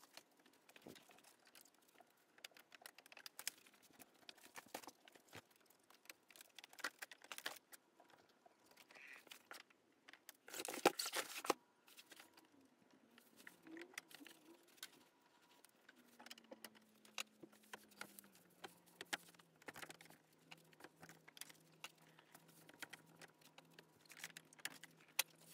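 Faint, scattered clicks, rattles and rustles of C&C cage wire grids, plastic connectors and Corex liner being handled as a cage section is taken apart, with a louder rustle about eleven seconds in. A faint low hum comes in after about sixteen seconds.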